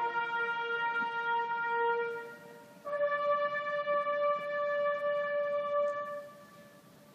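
Military bugle call: one long held note, then after a short break a higher long note that fades away near the end.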